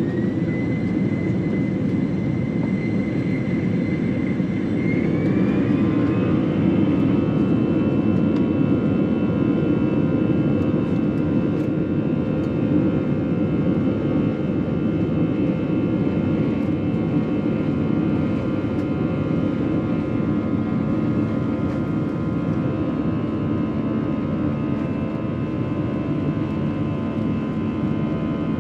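Airbus A321 jet engines spooling up to takeoff thrust, heard from inside the passenger cabin. A whine rises in two steps over the first six seconds or so, then holds as several steady tones over a loud, even rumble through the takeoff roll.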